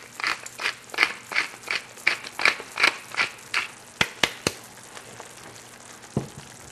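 Pepper mill being twisted over the pan: quick crunchy grinding strokes, about three a second for three and a half seconds. A few sharp clicks follow about four seconds in, and a single knock near the end.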